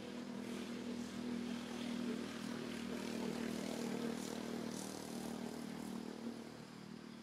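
A distant engine droning steadily, swelling over the first couple of seconds and fading away toward the end.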